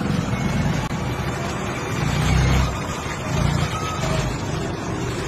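A motor vehicle's engine running steadily amid street noise, with a brief dropout about a second in.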